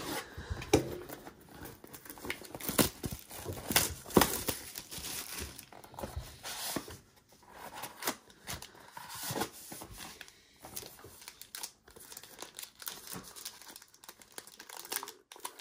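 Plastic shrink-wrap on a trading-card box being slit with a box cutter and pulled off, then the cardboard box opened and a foil card pack crinkling as it is handled. Irregular crackling and tearing, with sharp crinkles now and then.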